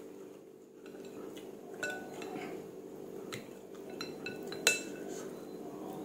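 Metal spoon clinking against a ceramic noodle bowl as noodles are scooped out of the soup. There are several light, ringing clinks, the loudest about three-quarters of the way through.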